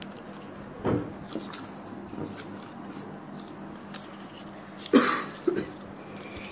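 Faint crinkling of a small folded paper slip being unfolded by hand, with a short loud cough-like vocal burst a little before five seconds in and a smaller one just after.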